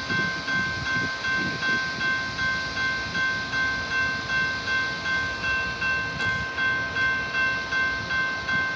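Railroad grade-crossing bell ringing steadily, about two and a half strikes a second, with a low rumble in the first couple of seconds.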